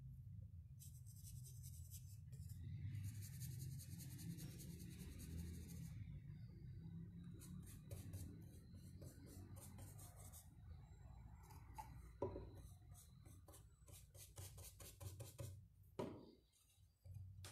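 Faint scratching of a paintbrush stroking PVA craft paint onto rough, weathered wood, in several runs of quick short strokes. A couple of light knocks come near the end.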